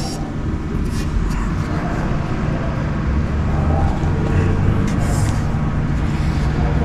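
Steady low engine rumble, like a motor vehicle idling, with a few faint clicks about one second and five seconds in.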